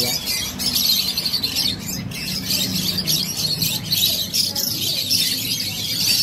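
Many caged lovebirds chirping and chattering together, a dense, unbroken run of overlapping high chirps.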